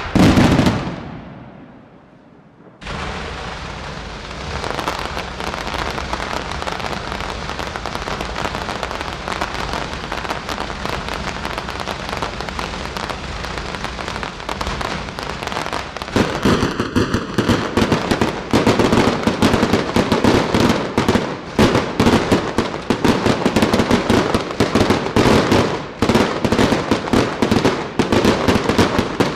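Fireworks display: a loud blast at the start, then after a brief lull a dense, continuous crackle of rapid pops and bangs from aerial shells and crackling stars. About halfway through it grows louder and heavier, with quick bangs packed closely together.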